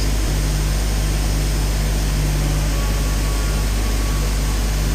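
High-speed spindle on a CNC mill running steadily with a steady low hum as a small end mill cuts clearance into a lock-pick tensioner tube.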